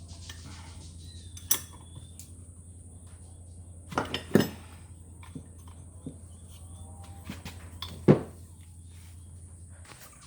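Metal hand tools and turbocharger parts clinking together during bench assembly, with several separate sharp metallic clinks, the loudest about halfway and near the end. A steady low hum runs underneath and stops shortly before the end.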